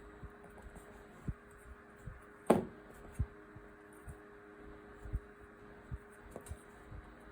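Quiet handling of a potholder loom and its loops: scattered soft taps, with one sharp click about two and a half seconds in, over a steady low hum.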